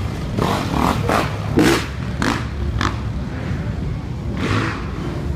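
Engines of slow street traffic and motorbikes running in a steady low rumble, with five short loud bursts of noise over it.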